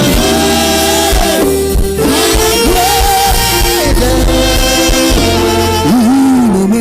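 Live gospel worship music: a singer holds long sung notes over a band's steady sustained keyboard chords and bass.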